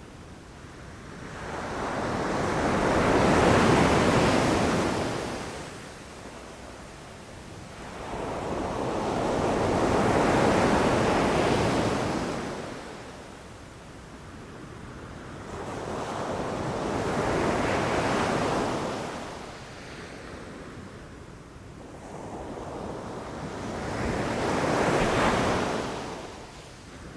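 Ocean surf on a beach: four waves in a row, each building up, breaking and washing out again, about seven seconds apart.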